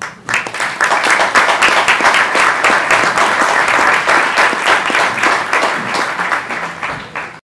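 Audience applauding, many hands clapping together, cut off suddenly near the end.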